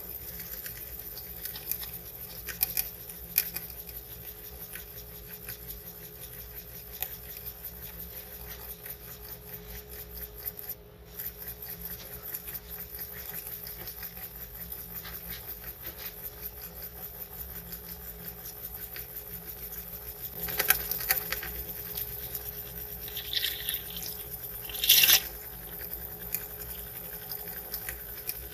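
Soapy water dripping and trickling from a miniature cleaning tube into a basin, with foam crackling softly; a couple of louder wet sounds in the last third.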